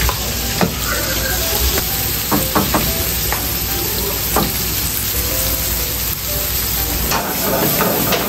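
Sliced onions sizzling steadily in a hot oiled wok on a gas burner, as they go into the pan and are stirred. A wooden spatula knocks and scrapes against the wok several times.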